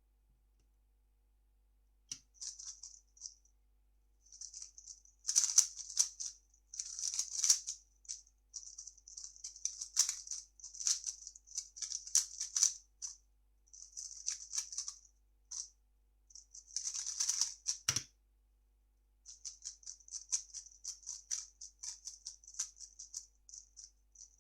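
A 3x3 speed cube being turned fast: quick runs of plastic clicking and clacking as the layers snap round, in bursts with short pauses. A single sharp thump comes about eighteen seconds in.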